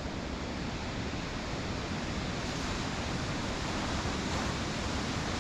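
Steady rushing of a waterfall and its beck below, an even hiss and rumble that does not change.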